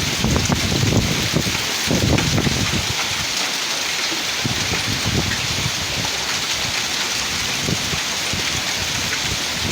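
Heavy rain falling in a steady hiss, with low rumbles swelling twice in the first few seconds.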